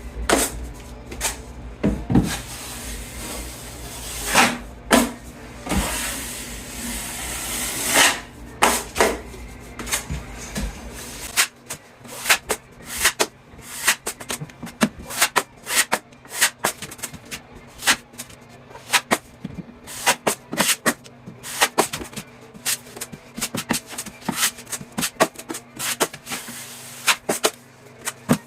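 Drywall taping knife spreading premixed joint compound on a wall, with many short scrapes and sharp clicks of the blade. A low steady hum underneath stops about eleven seconds in.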